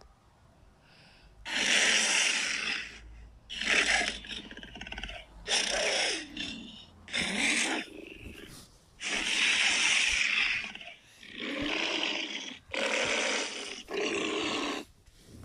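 Custom-made Godzilla roar sound effects in the style of Godzilla 2000: a string of about eight separate roars, each around a second long with short gaps between, some falling in pitch at the end.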